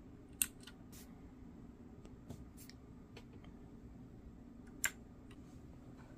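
Scattered sharp clicks of mechanical keyboard keys being pressed, about half a dozen, the loudest about half a second in and near the end, over a faint steady room hum.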